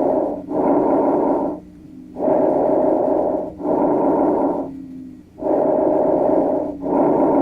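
Recorded chest breath sounds of the kind heard through a stethoscope: three full breathing cycles, each an in-breath and an out-breath heard as a rushing noise with a brief break between them and a longer pause before the next breath.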